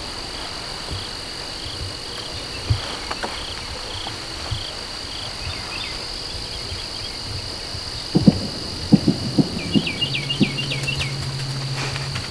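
Steady, high-pitched chorus of crickets and other insects. A run of soft knocks and bumps starts about eight seconds in, and a few short falling chirps come near the end.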